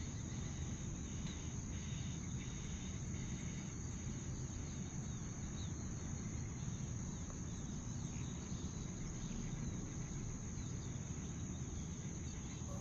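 A chorus of insects, crickets by the sound of the tags, singing in one unbroken high, even drone over a steady low rumble.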